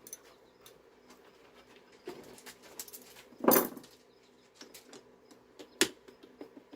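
A long bolt being handled and fitted into the loose handle of an electric pressure washer: small clicks and rattles of metal and plastic parts, a louder clatter about halfway through and a sharp click near the end.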